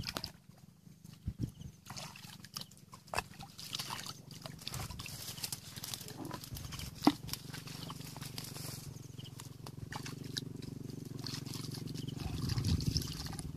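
Hands groping in shallow muddy water, with scattered small splashes and squelches and one sharp knock about halfway through. From about the middle a steady low drone of unknown source sets in and grows louder near the end.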